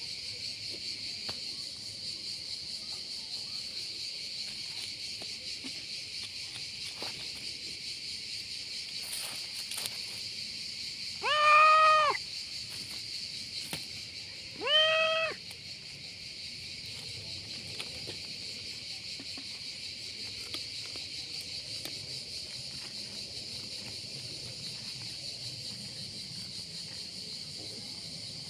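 A cat meows twice, each a short rising-then-falling call, about three seconds apart, over a steady high-pitched chirring of crickets in the grass.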